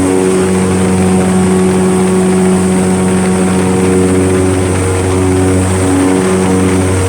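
Airboat engine and air propeller running at fast speed: a loud, even drone with a deep hum and a buzzing overtone, its pitch holding steady.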